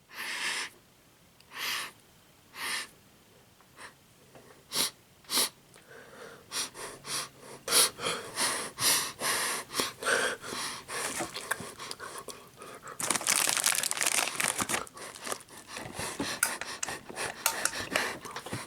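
A man sniffing and snorting hard through his nose after taking ground pepper up a nostril to bring on a sneeze. A few separate sniffs come first, then a fast run of short sniffs from about six seconds in, and a longer rushing breath a little past halfway.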